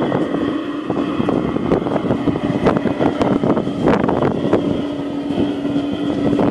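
LGB G-scale model train running on garden track, with a steady hum and a busy clatter of wheels over the rail joints and curve.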